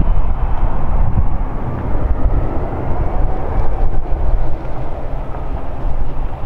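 Rolls-Royce RB211 jet engines of a Boeing 757-200 heard from a distance as it rolls down the runway after landing: a steady, rushing rumble, with wind buffeting the microphone.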